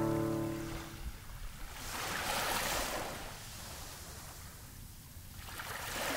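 Sea waves washing onto a beach, swelling twice: around two seconds in and again near the end. The last chord of the music dies away in the first second.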